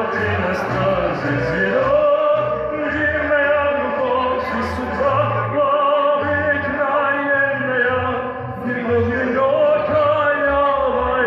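A man sings a Russian song into a handheld microphone in a full, opera-like voice, holding long notes that glide from one pitch to the next.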